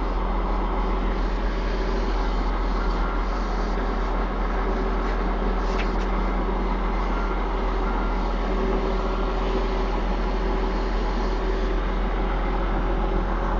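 Case 450 tractor's big diesel engine idling steadily, heard from inside the cab: an even low hum with steady tones above it.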